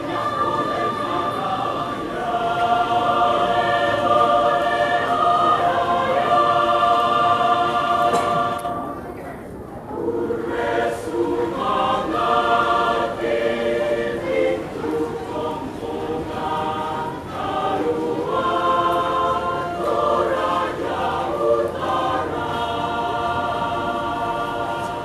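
Mixed choir of women's and men's voices singing in full voice, holding long chords. The sound falls away briefly about nine seconds in, then the singing resumes with shorter, moving notes.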